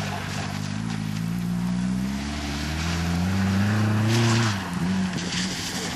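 Volkswagen GTI engine revving hard as the car is driven on a wet skid pan, climbing in pitch for about three seconds, then dropping sharply about four and a half seconds in before picking up again.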